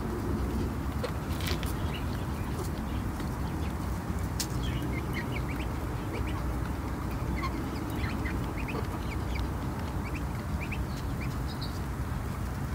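Hens clucking softly while pecking at scattered grain, with a duckling peeping in many short, high chirps, over steady low background noise and a few sharp taps.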